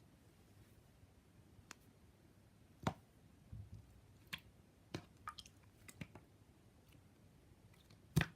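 Store-bought slime being squished and pressed by hand, giving faint, scattered sticky clicks and pops, the loudest one near the end.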